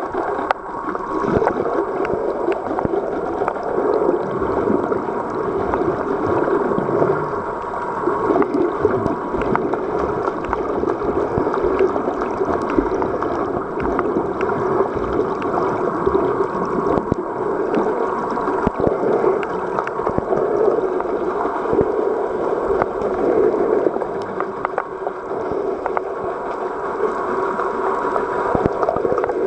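Underwater sound picked up by a submerged camera: a steady, muffled rush and hum of water with faint scattered clicks.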